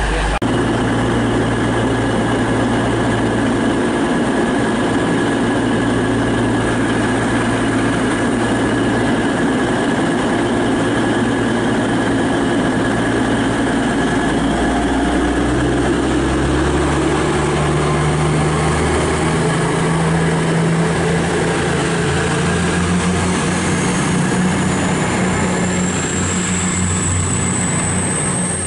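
East Midlands Trains Class 222 Meridian diesel multiple unit, its underfloor diesel engines running steadily at the platform. About halfway through, the engines step up to a higher pitch as the train powers away, and a high whine rises near the end.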